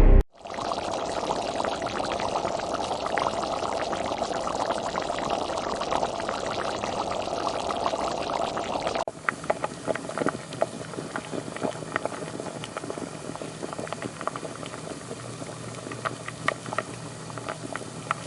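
Cooking sounds in two takes: a steady liquid hiss and bubbling for about nine seconds, then, after a sudden cut, a quieter crackle with scattered sharp pops.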